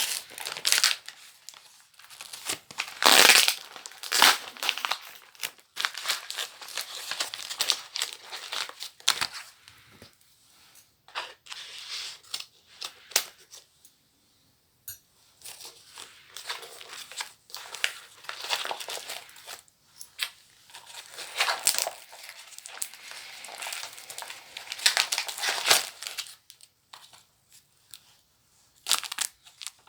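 Paper wrapping of a book parcel being torn open and crumpled by hand: irregular rustling and ripping, loudest about three seconds in.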